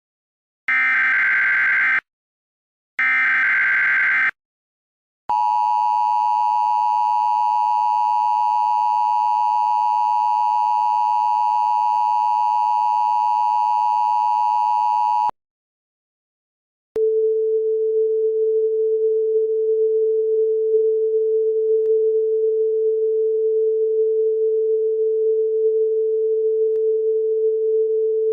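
Emergency Alert System signals: the last two short, buzzy bursts of a digital SAME header, then about ten seconds of the steady two-tone EAS attention signal. After a brief pause, a steady lower, slightly rough tone starts and continues.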